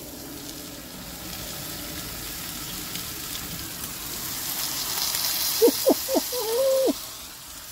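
Steak, sliced mushrooms and onions sizzling in a frying pan on a portable gas stove while the pan is worked by its handle, the sizzle growing louder partway through. A few short pitched sounds come in about two-thirds of the way through.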